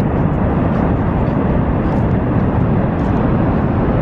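Niagara Falls' water pouring down: a loud, steady, even rushing noise.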